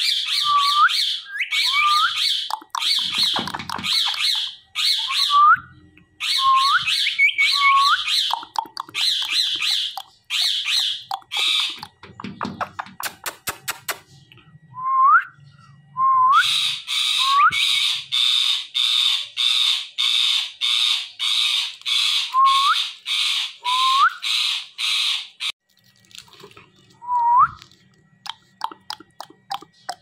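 Indian ringneck parakeet screeching: repeated harsh squawks, many ending in a short rising whistle. After a pause with a few sharp clicks, the calls come again as a fast, even run of about two screeches a second. Near the end there are only faint clicks.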